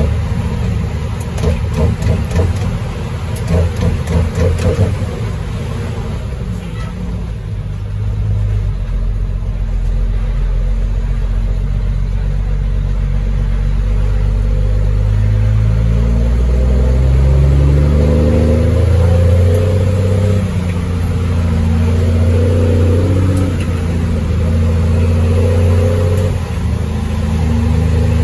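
Cummins M11 Select Plus diesel of a Freightliner FLD, heard from inside the cab, pulling away and working up through the gears of its 18-speed transmission. From about halfway in, the engine pitch climbs, drops back at each shift and climbs again, several times over.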